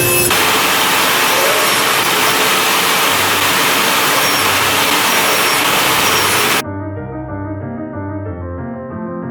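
Loud, steady rushing noise of a woodworking power tool running, cutting off abruptly about two-thirds of the way through. Piano music carries on after it.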